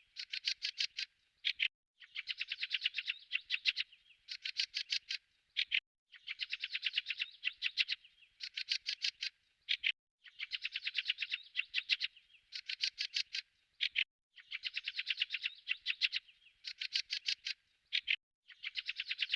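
A songbird singing phrases of rapid, high chirps, each phrase lasting a second or two with short pauses between. The same pattern of phrases repeats about every four seconds.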